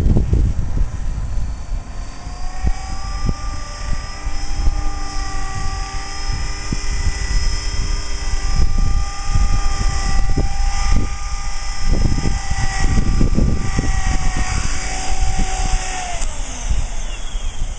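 CopterX CX 500 SE electric RC helicopter in flight: a steady whine from its motor and rotor, with wind buffeting the microphone. Near the end the whine drops in pitch as the rotor slows.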